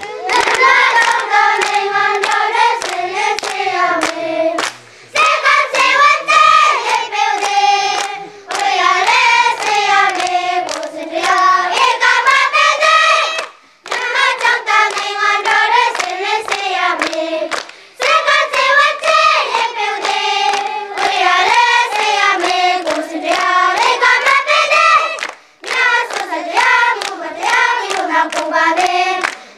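A group of children singing a song together in unison, clapping their hands along with it, in phrases of a few seconds with short breaks between.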